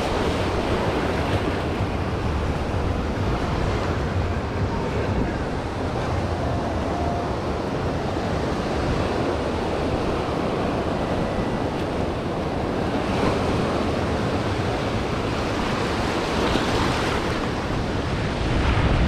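Surf washing in over a shallow rocky reef shore, a steady wash of waves and foam, with wind buffeting the microphone. The wash gets louder near the end.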